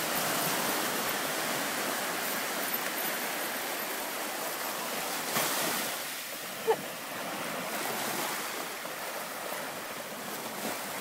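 Small waves breaking and washing up the sand, a steady surf hiss. About two-thirds of the way through there is one brief high squeak that drops in pitch.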